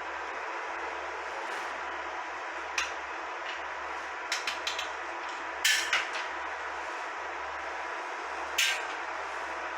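Sharp clicks and knocks from an existing automatic fire-alarm detector being taken down during a detector replacement: one click, then a quick run of four, two louder ones, and a last one near the end, over a steady hiss.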